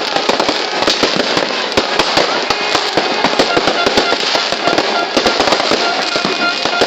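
Fireworks going off without a break: a dense, rapid crackle of overlapping pops and bangs, with a few faint held tones over it.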